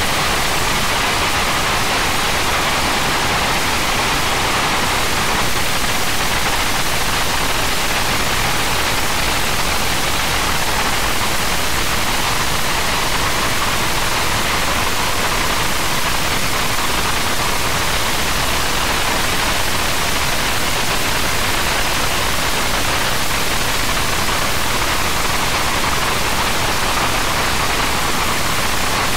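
English Electric Lightning's Rolls-Royce Avon turbojet running at full afterburner (reheat) on a ground run: a loud, steady rush of jet noise with no change in pitch or level.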